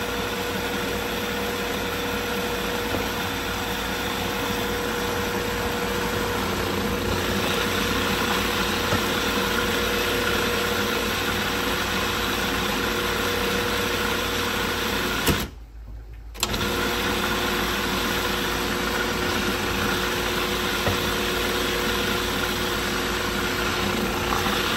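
Food processor motor running steadily with a constant hum, pureeing soaked puppy kibble into a thick mush. The sound breaks off suddenly for about a second two-thirds of the way through, then carries on.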